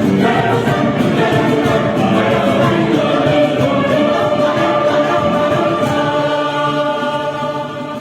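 Choir singing in several parts, settling into a long held chord that fades out at the end.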